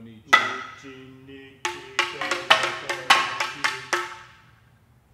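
Live hand percussion on hard, ringing instruments: one sharp stroke about a third of a second in, then a quick run of about a dozen strokes, each with a short ring.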